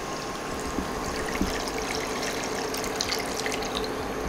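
Thin coconut milk poured in a steady stream from a steel bowl into a nonstick pan, splashing as it fills the pan.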